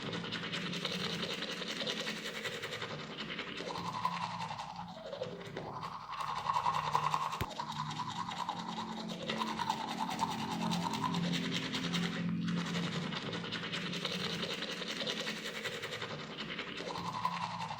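A person brushing their teeth with a toothbrush: steady back-and-forth scrubbing of the bristles, with a brief break about twelve seconds in.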